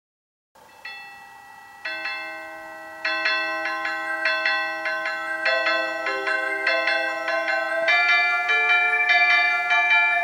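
Opening melody of a Seiko Small World Seeker karakuri clock in bell-like electronic chime tones. After a moment of silence, single notes ring in and overlap, building to fuller chords about three seconds in and again near the end.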